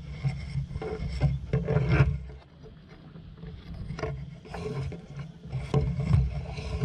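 Wind rumbling on the microphone, with leaves and twigs rustling and rubbing against the camera as the branch shifts; it drops to a quieter lull about halfway through.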